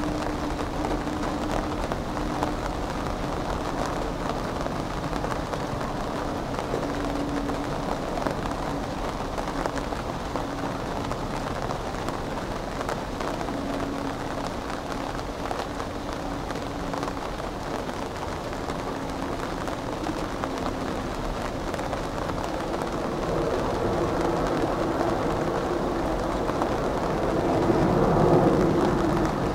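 Airbus A320's twin jet engines at takeoff power as the airliner rolls down a wet runway throwing up spray and lifts off: a steady rushing noise that swells in the last few seconds.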